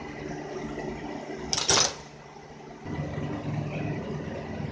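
An engine running in the background with a steady low hum. About one and a half seconds in, a short, loud hiss; the hum then drops away for about a second before returning.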